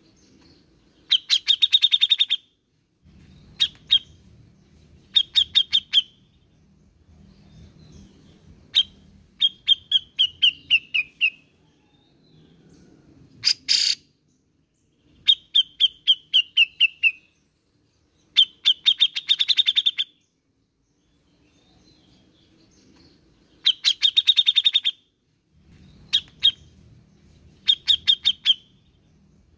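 Grey-cheeked bulbul (cucak jenggot) calling in rapid chattering bursts of clicking notes about a second long, repeated every few seconds. Two of the phrases slide down in pitch, and one harsher, louder burst comes about halfway through.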